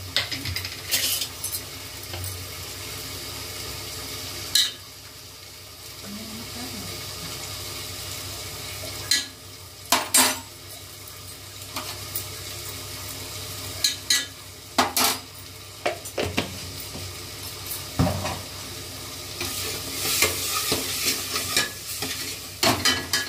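Food sizzling in a pan on the stove over a steady hiss, with a metal spoon stirring and now and then knocking and scraping against the pan, about a dozen sharp clatters in all.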